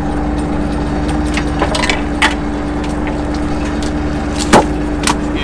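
Fishing boat's engine running with a steady hum, with several sharp knocks and clacks as longline gear and halibut come aboard over the rail; the loudest knock comes about four and a half seconds in.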